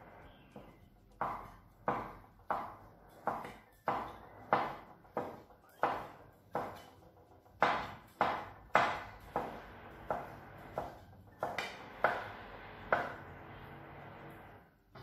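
Kitchen knife chopping cooked wheat gluten (mì căn) into strips: about twenty sharp knocks, roughly two a second, stopping about two seconds before the end.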